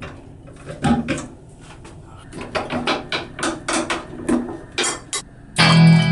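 A quick, uneven run of sharp clicks and knocks as small objects are handled at a bathroom sink and toiletry shelf. Guitar music starts loudly near the end.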